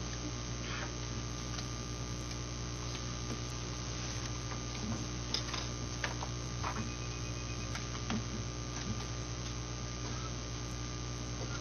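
Steady electrical mains hum on the chamber's audio feed, with a few faint clicks and rustles of paper being handled at a podium microphone.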